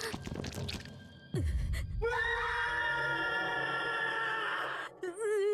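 Horror-scene sound: a sudden low boom about a second in, then a held, many-toned dramatic sting, and near the end a woman screaming with a wavering pitch.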